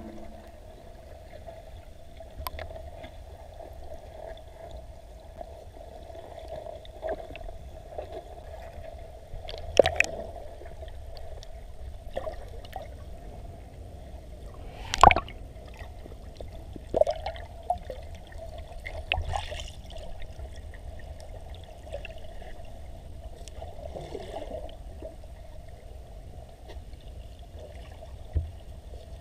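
Water heard from underwater: a steady, muffled rush with a few sharp knocks and clicks scattered through it, the loudest about halfway through.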